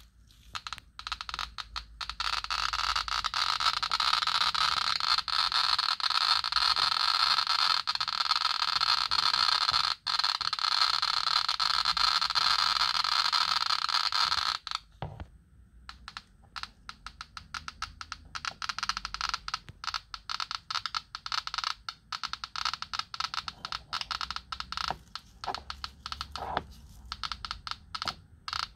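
FH 40 T Geiger counter clicking very rapidly over pitchblende uranium ore. For the first half the clicks run together into a dense crackle, a high count rate from the ore. After a brief break the count resumes as a fast patter of separate clicks.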